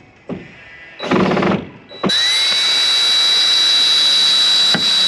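Power drill running: a short burst about a second in, then a steady high whine that spins up and holds for several seconds, as when driving a screw while fastening roof sheets.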